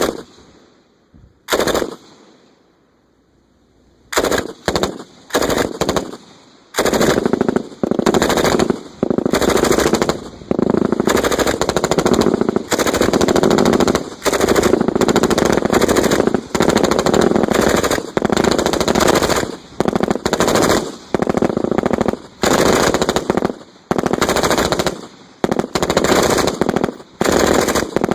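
Several M249 SAW light machine guns firing 5.56 mm belts on full automatic. A couple of single shots in the first two seconds, then from about four seconds in, bursts from the different guns overlap into almost unbroken fire.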